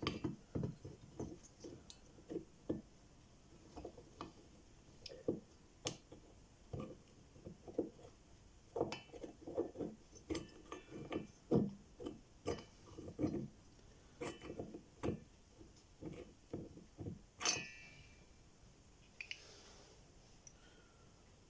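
Irregular light clicks and knocks of metal engine parts being handled as the piston, fitted with new rings, is worked into a STIHL MS 180 chainsaw cylinder. There is one sharper clink near the end that rings on briefly.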